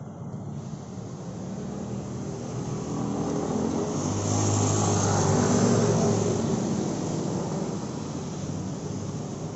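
A motor vehicle's engine passing close by on a street, growing louder to a peak about halfway through and then fading, with a low engine hum under the traffic noise.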